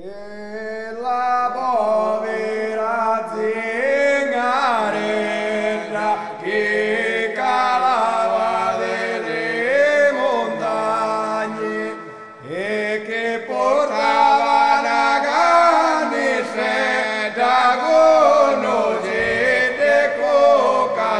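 Male voices singing a traditional Sicilian Christmas chant in melismatic, bending phrases over a steady held drone note, with a short break between phrases about twelve seconds in.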